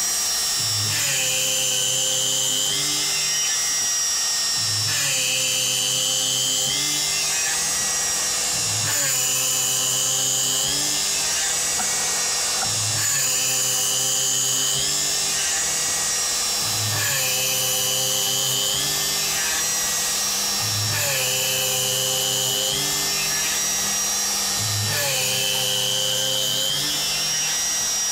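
Kress spindle on a homemade CNC machine drilling a row of holes in plywood with an 8 mm bit, running through a cycle that repeats about every four seconds. Each cycle has a short low buzz as the head moves to the next hole, and the spindle's whine shifts in pitch as the bit plunges and lifts.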